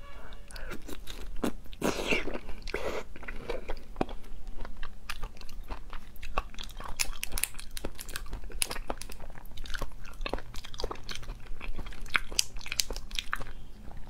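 Close-up wet biting and chewing of raw slipper lobster meat eaten as sashimi, mixed with sharp cracks and snaps of the thin shell as it is pulled apart by hand, many small clicks throughout.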